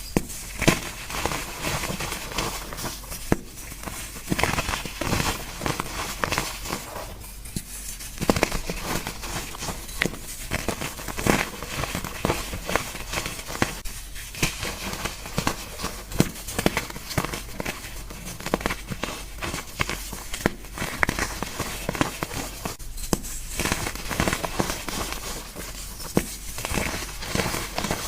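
Gym chalk being crushed by hand: a continuous run of dry, irregular crunches and crackles.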